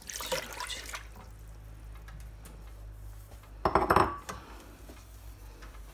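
Water poured from a ceramic bowl into a pot of sugar, a short splashing pour in the first second as the sugar syrup is started. About four seconds in, a louder clatter of kitchenware.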